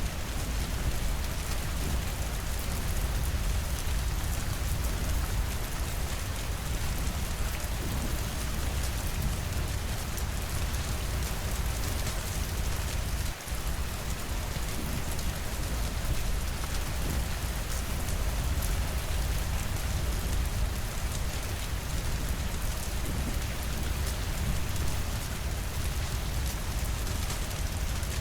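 Steady rain falling against windows, an even hiss of drops with a deep low rumble underneath. The sound dips for an instant about halfway through.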